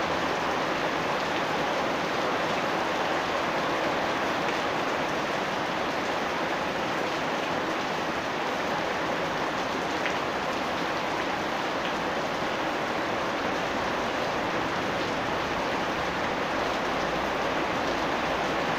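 Steady rain, an even hiss that neither swells nor fades, with a few single drops standing out faintly about halfway through.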